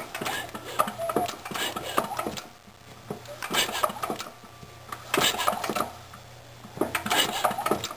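Old magneto-fired engine being turned over by hand in four strokes, each a burst of clicking and rattling, with quieter pauses between. It has a spark plug tester on the lead and does not fire: the plug gets no spark, which the owner puts down to a nicked plug wire arcing behind the flywheel with a sharp snapping sound.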